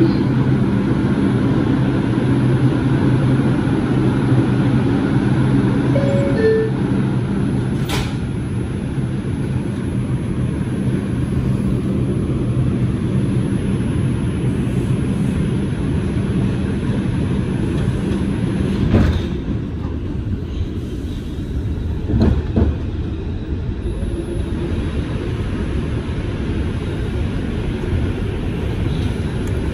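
Bombardier R142 subway train running between stations: a steady rumble with a low droning hum through the first two-thirds that then fades. A sharp click comes about eight seconds in, and a few knocks follow later.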